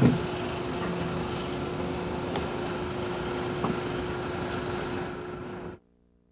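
Steady outdoor background noise with a constant low hum, opening with a short thump. It cuts off abruptly near the end to near silence.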